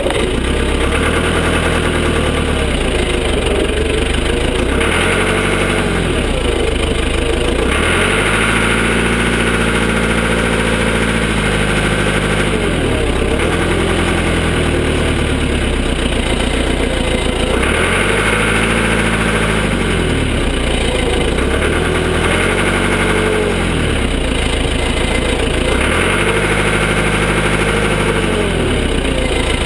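Cat 416 backhoe loader's diesel engine running while working, its pitch rising and falling again and again every few seconds as it revs up and eases back.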